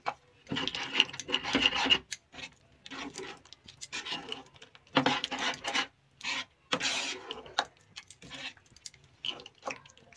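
Spatula stirring thick cooked saag (mustard greens) in a wide pan, scraping through the paste and along the pan in irregular strokes, a few of them longer and louder, as fried masala is mixed into the greens.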